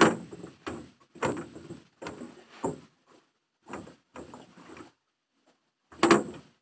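Clothing and a knit scarf rubbing and scraping against the microphone in a string of irregular rustles. The loudest comes about six seconds in.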